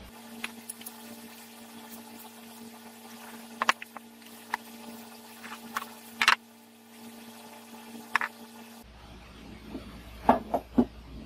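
Scattered clicks and knocks as plastic-wrapped drill press parts are handled and set down on a wooden workbench, with a cluster of heavier knocks near the end as the cast iron base and table go down. A steady low hum runs under most of it.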